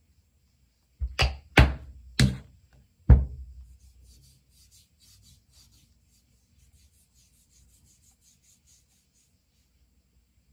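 Four sharp thumps in the first few seconds, then a few seconds of quick, faint rubbing strokes as lotion is spread over the skin of an arm by hand.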